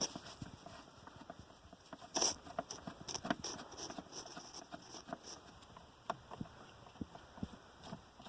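Scattered small clicks, taps and scrapes of a screwdriver and plastic dashboard trim being worked on as screws under the glovebox are undone, with a sharper click about two seconds in.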